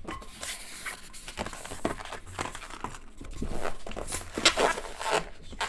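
Long latex twisting balloons squeaking and rubbing as they are handled and twisted, a scattered series of short squeaks and crinkly rubs.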